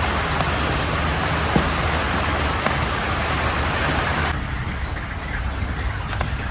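Steady rain hissing, with a few sharp drops tapping close by. The rain noise falls away abruptly about four seconds in, leaving a softer hiss.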